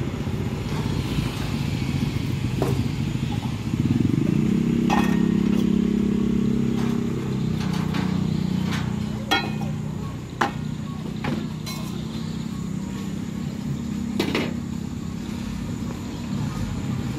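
A motor vehicle engine running close by on the street, loudest from about four to eight seconds in, then fading to a lower hum. Scattered sharp clinks and knocks of metal cookware being handled at the stove sound over it.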